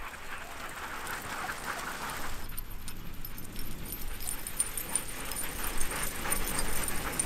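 Sled dog teams running past in harness on packed snow, the dogs barking, over a quick patter of many small ticks that grows louder toward the end.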